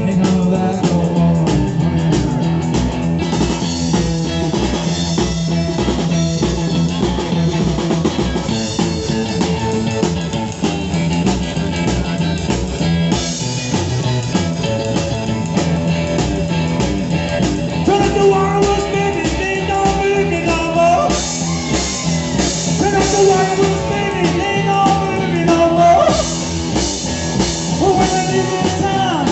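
Live rock and roll band playing loudly through a PA: electric guitar over a drum kit.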